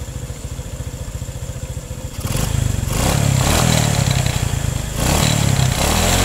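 Honda Kirana's single-cylinder four-stroke engine idling with an even putter, then opened up about two seconds in and running louder at raised revs, with a short dip near the end before picking up again.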